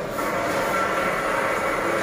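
Large-format flex banner printer running, its print-head carriage shuttling across the media with a steady mechanical running noise.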